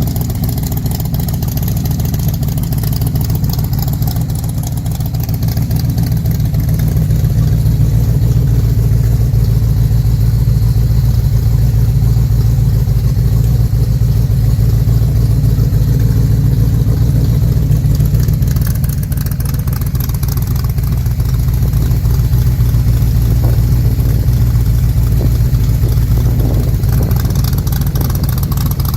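Factory Five MK4 Cobra replica's V8 running through new GP headers and side pipes, a steady deep exhaust note with no exhaust leak. The engine speed rises a little about six seconds in and dips briefly about two-thirds of the way through.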